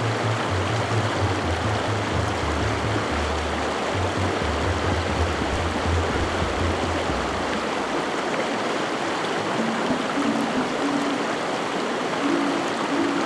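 A brook rushing steadily, with soft music under it: low held notes for the first half, then a few higher sustained notes near the end.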